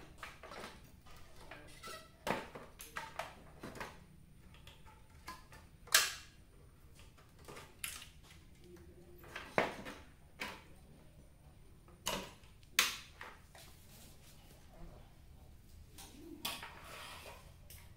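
Scattered clicks and knocks of a CRT television's circuit boards, connectors and cables being handled and set back into place, with the sharpest knocks about six, nine and a half and thirteen seconds in.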